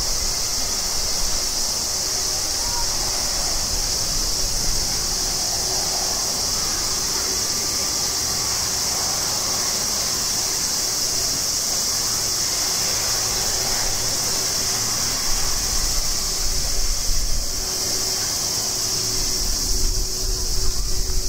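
Jet engines of a Boeing 767 freighter running at taxi power as a low, steady rumble, under a continuous high-pitched insect chorus. The low rumble swells briefly twice near the end.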